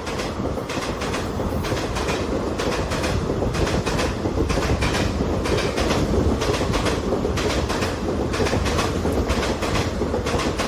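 Wheels of Indian Railways ICF passenger coaches clattering over the rail joints at speed, a repeated clickety-clack of about two to three clicks a second over a steady low rumble of the rolling train.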